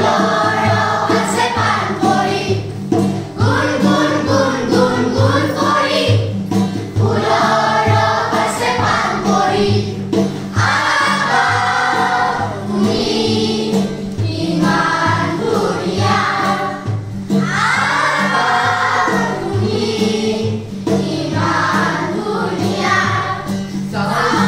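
A group of children singing together in chorus over steady instrumental accompaniment with sustained low notes.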